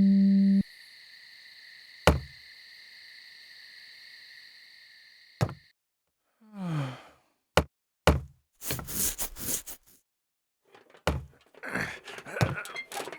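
Homemade foley effects: a string of sharp knocks and thuds, a short falling creak or groan, and bursts of rustling. A held electronic tone cuts off about half a second in.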